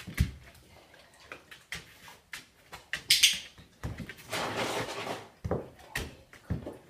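A large dog moving about on a tiled kitchen floor: scattered clicks and knocks of claws and feet on tile, with a longer scuffling rustle a little past halfway.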